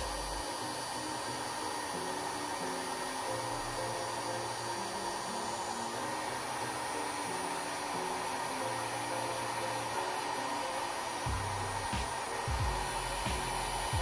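Heat gun running steadily, blowing hot air across thick white epoxy resin. Background music plays underneath, and a bass beat comes in about eleven seconds in.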